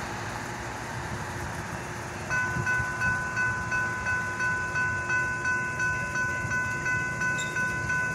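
A railroad grade crossing warning bell starts about two seconds in and rings in a steady repeating pattern, the crossing signals activating for an approaching train. Before it there is only a steady outdoor noise.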